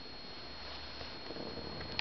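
Quiet room tone with a faint steady high whine, and soft rustling toward the end as an infant shifts on a rug.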